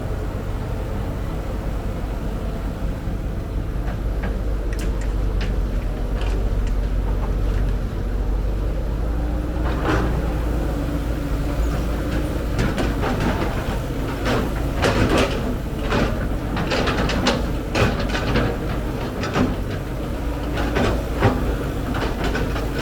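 Cat 312B excavator's diesel engine running steadily, with sharp knocks and scraping that become frequent from about ten seconds in as the machine works.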